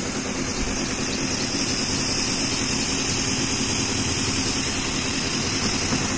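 Battery knapsack sprayer running: the electric pump's steady hum under the even hiss of water misting from a brass nozzle.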